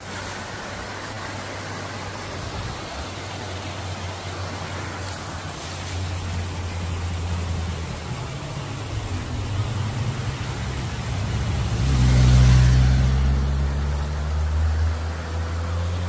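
Motorcycle engine on the road, growing louder and passing close about twelve seconds in, its pitch dropping as it moves away, over a steady rushing background noise.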